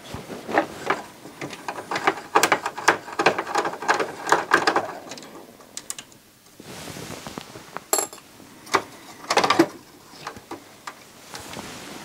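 Irregular clicks, taps and knocks of a CD player's drive and parts being handled during a repair, with a short stretch of hiss about halfway through.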